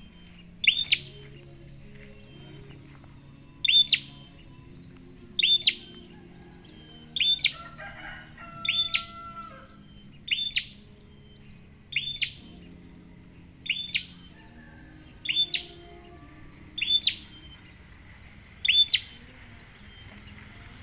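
Prinia (prenjak) calling: a sharp, high double chirp repeated about every one and a half to two seconds, eleven times in all.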